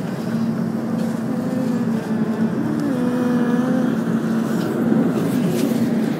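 New York subway train heard from the cab: a steady electrical hum, with a whining tone that glides up and down for a couple of seconds in the middle.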